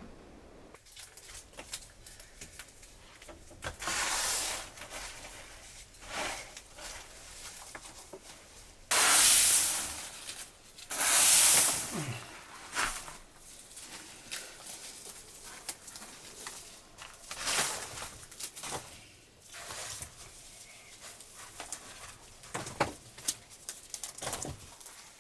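Irregular bursts of rustling and tearing noise, the loudest two in the middle, with scattered clicks and knocks between them.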